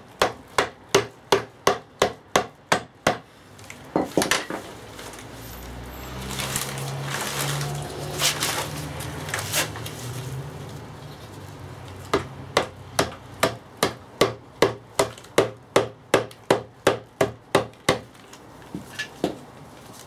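Plastic hammer tapping on a VW Passat gearbox casing in quick, even blows, about three a second, to break the gear case free from the diff housing. The tapping stops for several seconds in the middle, when a low hum is heard with only a few knocks, then starts again.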